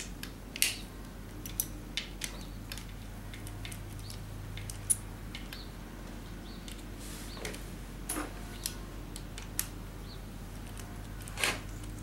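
Scattered sharp metallic clicks and clinks of a socket wrench and extension working loose the oil-pump bolts on a rotary engine, over a steady low hum.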